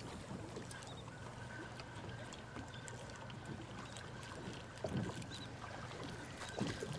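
Quiet sound of water lapping against a small fishing boat's hull in a light chop, with a faint steady high whine through most of it. There are a couple of louder soft slaps, about five seconds in and near the end.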